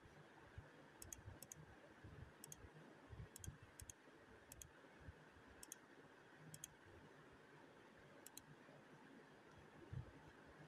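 Near silence: faint room tone with about nine small, sharp ticks at irregular intervals, each a quick double or triple click.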